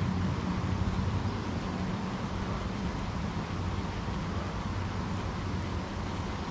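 Steady rain falling on a lake and a small boat, over a low steady hum.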